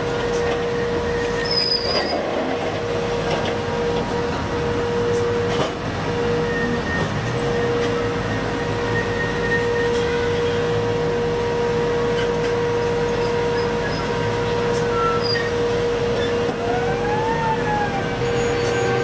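P&H electric rope shovel loading a BelAZ 75710 mining haul truck: steady heavy-machinery rumble with a constant electric whine, and a short whine that rises then falls near the end.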